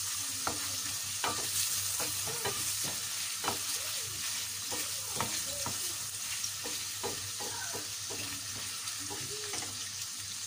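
Beef pieces frying in olive oil and butter in a stainless steel pan, sizzling steadily, while a wooden spoon stirs them with irregular knocks and scrapes against the pan.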